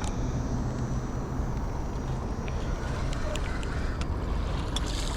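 Steady rushing outdoor noise of wind on the microphone and flowing river water, with a few faint ticks.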